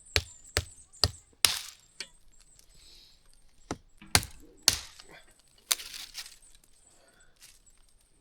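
Dry branches of a dead tree snapping as they are broken off: a string of sharp cracks, some followed by a brief rustle, thinning out in the last couple of seconds.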